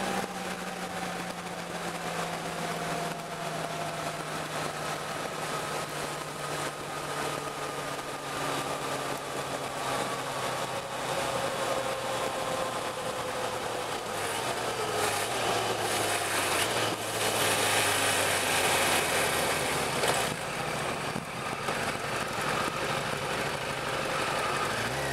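Motorcycle engine running while riding, with wind rush. The engine's pitch falls slowly as the bike eases off, the wind grows stronger partway through, and the engine note rises again at the very end.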